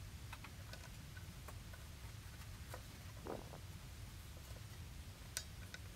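Faint scattered clicks and light taps from fingers handling the nichrome cutting wire and the steel threaded rod of a homemade foam cutter, with a dull knock about halfway through and a sharper click near the end, over a low steady hum.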